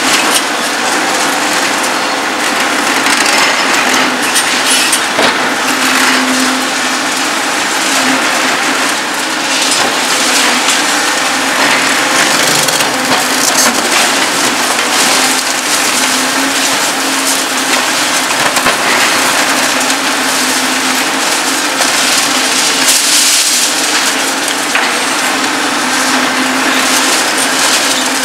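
Reinforced concrete cracking and crunching as a Demarec DCC-75 hydraulic concrete shear crushes it, with irregular snaps and knocks throughout. Underneath runs the steady hum of a Volvo EC 750E demolition excavator.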